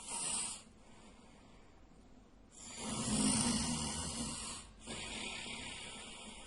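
A sleeping man snoring: a short breathy sound at the start, then one loud snore about two and a half seconds in that lasts about two seconds, followed by a quieter breathy sound that fades.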